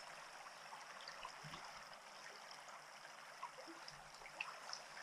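Faint flowing river current, a steady low rush of water with a few small scattered ticks.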